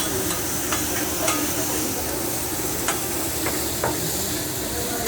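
Food sizzling steadily on a hibachi griddle, with a few sharp metal clinks scattered through.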